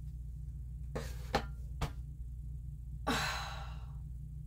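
A woman sighs once, a single breathy exhale about three seconds in. It comes after three small clicks and sits over a steady low hum.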